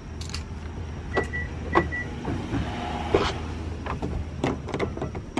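Vehicle's power sliding door operating: two short electronic beeps, each with a click, then the door motor running briefly, with a few knocks as the door moves.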